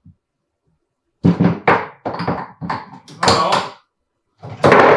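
A run of loud knocks and clunks from about a second in, then one more heavy clunk near the end: metal engine parts such as pistons and connecting rods being handled and set down.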